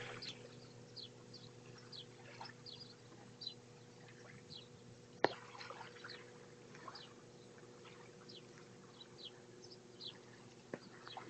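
Faint chirping of small birds: many short, high, down-slurred notes repeating irregularly, over a steady low hum. A single sharp click about five seconds in.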